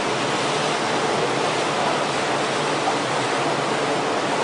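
Steady rushing water, an even noise that holds level throughout.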